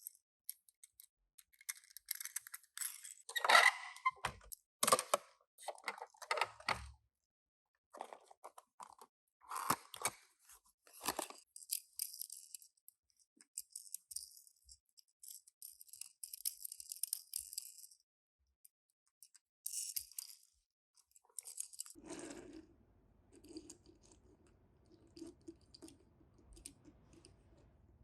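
Toy car packaging being opened and handled by hand: crinkling, tearing and sharp clicks of cardboard and plastic, in short irregular clusters. A faint low hum comes in about two-thirds of the way through.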